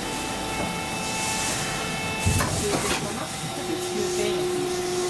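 Toyohashi Railway 780-series tram running on street track, heard from inside the car: a steady whine of several tones over running noise, a knock a little after two seconds in, then a lower steady hum from about three and a half seconds.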